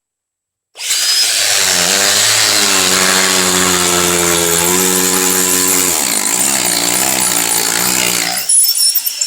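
Hammer drill boring into concrete with a masonry bit: it starts about a second in, runs steadily with its pitch wavering around six seconds in, and stops near the end, followed by a brief rougher rattle.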